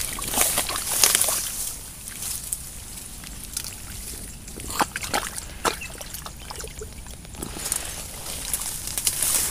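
Hands digging and groping in a waterlogged eel burrow, with irregular wet squelches and splashes of mud and water.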